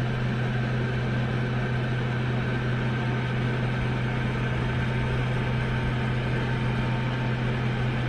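FHstars 1500 W ceramic space heater's fan running at its maximum setting, heard right up close: a steady rush of air over a strong, even low hum.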